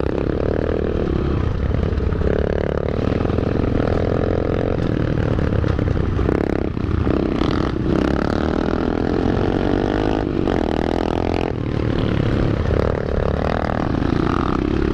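Several pit bike engines running on a dirt trail, the nearest one rising and falling in pitch as its throttle is opened and closed again and again.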